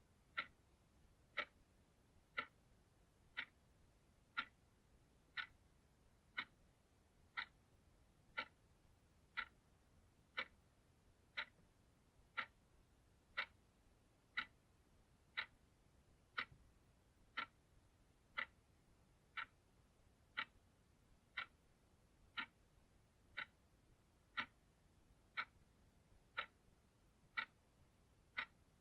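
Clock ticking steadily, one sharp tick each second, every tick alike.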